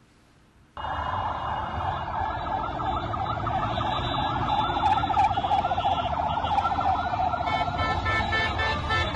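A siren in a vehicle convoy, warbling rapidly and steadily over traffic noise. It starts suddenly about a second in, and short car-horn toots join near the end.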